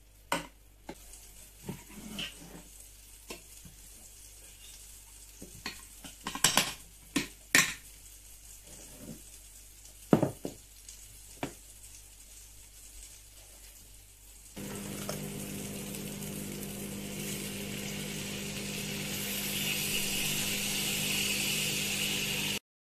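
A spoon clinks against dishes several times. Then, about two-thirds of the way in, a steady sizzling starts in a hot frying pan as soup goes in over breaded fish, growing louder toward the end.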